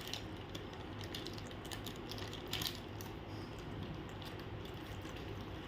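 Faint scattered light clicks and taps, one sharper click about two and a half seconds in, over a low steady hum.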